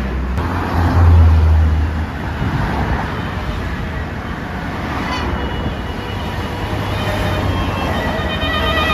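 A bus passing with a loud, low engine rumble about a second in, over steady road traffic noise. Near the end a multi-tone musical basuri "telolet" bus horn starts to sound.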